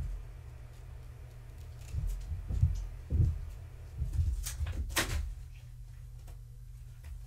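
A cat pouncing and scrambling after a feather wand toy on a blanket over carpet: a run of soft, dull thumps from paws landing, with a couple of sharp rustles about five seconds in, over a steady low hum.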